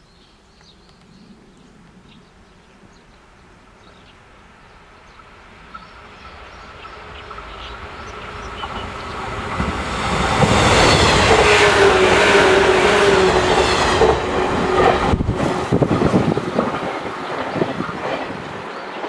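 JR West 115 series electric multiple unit approaching and passing. The sound builds over several seconds to a loud peak with a steady whine that sags slightly in pitch, then the wheels clack over the rail joints as the train goes by and the sound fades away.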